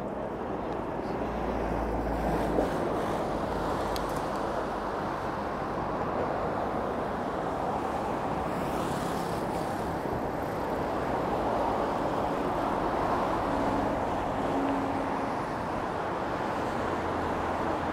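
Steady road traffic noise mixed with wind on the microphone from riding a bicycle, with a single brief click about two and a half seconds in.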